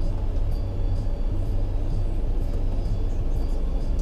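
Motorhome engine running at a standstill, heard from inside the cab: a steady low rumble.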